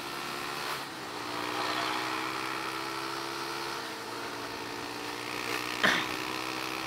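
Motorcycle engine running steadily at road speed, its pitch shifting slightly about a second in and again about four seconds in. A single sharp knock sounds near the end.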